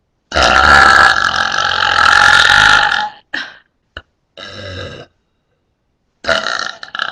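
A person's deliberate burps: one long, loud burp of about three seconds, then a short one and a quieter one, and another loud burp starting about six seconds in.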